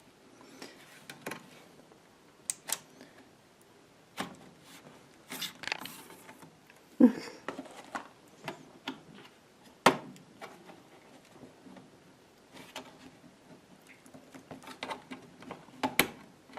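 Scattered plastic clicks, knocks and scrapes from prying at and handling the case of a Dell Latitude E6330 laptop, with the sharpest knocks about seven and ten seconds in.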